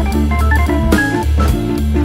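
Background music: an organ-like keyboard melody over a steady bass line, with a drum hit about once a second.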